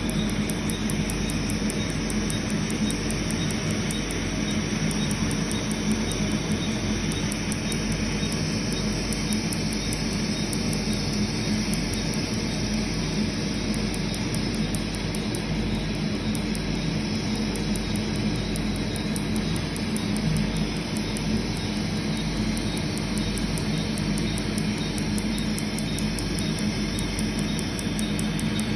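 Tattoo-removal laser firing a fast, even train of sharp snapping pulses, several a second, over a steady rush of air and machine hum from the cooling hose and laser unit.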